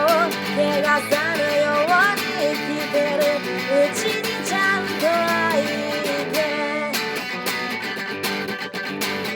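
Song instrumental passage led by guitar: a gliding lead melody over roughly the first six seconds, then strummed guitar chords.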